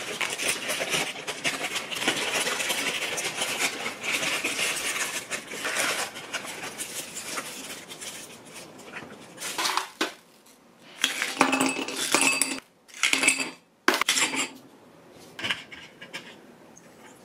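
Paper takeout bag and food wrappers crinkling and rustling as food is unpacked. From about eleven seconds in come a few short bursts of ice cubes clinking into a glass.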